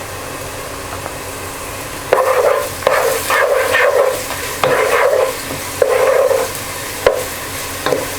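Onions frying in hot oil with a steady sizzle; from about two seconds in, a run of loud bursts of sizzling and stirring as ginger-garlic paste goes into the pan and is stirred through, with a sharp knock near the end.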